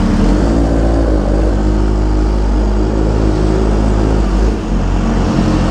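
Kawasaki Ninja H2R's supercharged inline-four running at low revs as the bike rolls slowly, its engine note holding steady with a short dip a little after four seconds.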